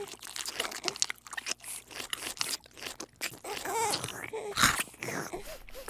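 Kittens chewing and crunching dry kibble from a bowl: a quick, irregular run of small crunches and clicks.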